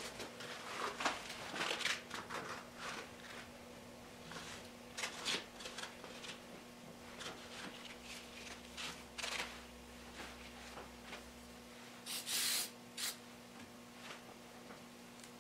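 Faint handling sounds of a CA glue bottle and fingers working over a wooden bowl blank: small taps, rustles and squeezes, with a steady low electrical hum underneath. About twelve seconds in come two short hissing bursts, the loudest sounds.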